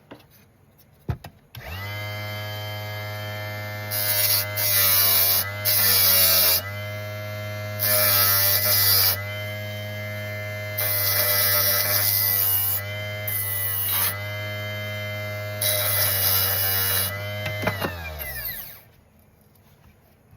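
Electric RC tire truer motor switching on, spinning a foam touring-car tire with a steady hum, then winding down and stopping near the end. Six times a loud rasping hiss joins it as a sanding bar is pressed against the spinning foam to clean old glue off the sidewall.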